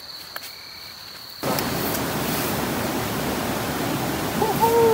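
A faint, steady insect trill, then about a second and a half in a sudden, steady rush of stream water takes over.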